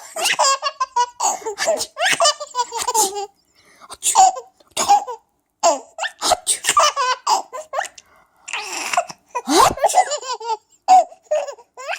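A baby laughing in repeated bursts of high-pitched giggles, with short pauses between bursts.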